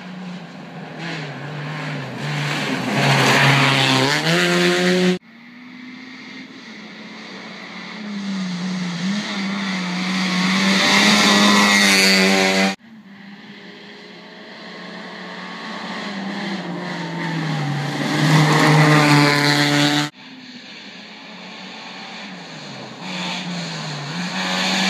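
Rally cars at speed on a gravel special stage, in four passes cut one after another. In each, the engine grows louder as the car approaches, its pitch rising and dropping through gear changes and throttle lifts, with tyres on loose gravel.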